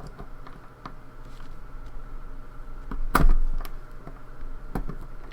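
Small metal clicks and scrapes of a circlip being pried off the back of a pin-tumbler lock cylinder, with one louder click about three seconds in.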